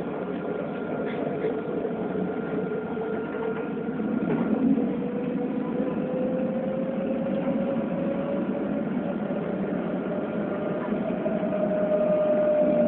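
Alstom Citadis electric tram running, heard from inside the passenger cabin: steady rolling drone with a thin motor whine that slowly rises in pitch as the tram picks up speed.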